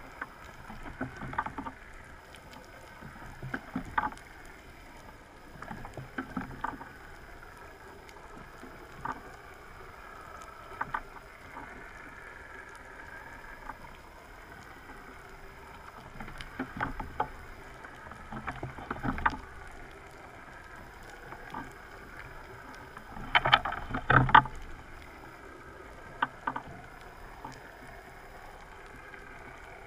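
Underwater noise picked up through a camera housing: a steady murky wash broken every few seconds by clusters of clicks and short crackling bursts, the loudest about two-thirds of the way through.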